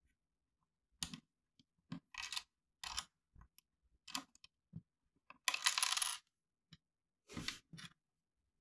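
Small plastic Lego pieces clicking and clattering against each other and the tabletop during a build, a string of sharp separate clicks with one longer rattle about halfway through, the loudest sound.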